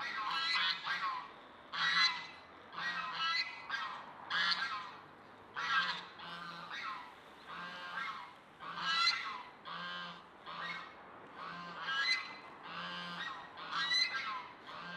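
Domestic geese honking over and over, one or two short calls a second.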